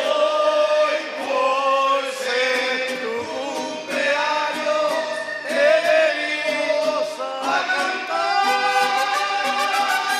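Mariachi band playing, trumpets and guitars together, with men singing.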